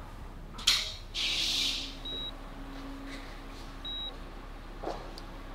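Hospital patient monitor beeping, a short high beep about every two seconds over a faint steady low hum. Before the first beep comes a sharp click and a short whoosh, the loudest sounds here.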